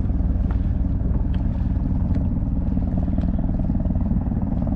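Firefighting helicopter approaching at close range, its rotor beating in a fast, steady pulse.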